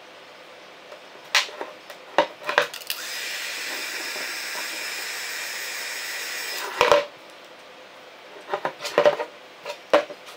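Heat gun blowing a steady hiss for about four seconds, warming the vinyl skin on a drone battery, then cutting off; around it, sharp clicks and knocks of the plastic batteries being handled and set down on the table.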